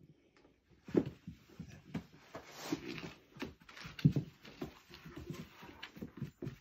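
Two poodles play-wrestling on a parquet floor: irregular scuffling, with claws scrabbling and paws and bodies knocking on the wood, starting about a second in.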